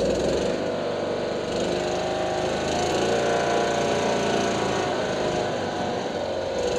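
Small engine of an open off-road buggy running steadily as it drives along a dirt track, its pitch drifting slightly up and down.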